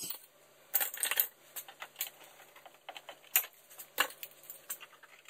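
Hand tools clicking and tapping on metal parts, irregular light metallic clicks with a few sharper ones scattered through, as the next fastener is worked loose.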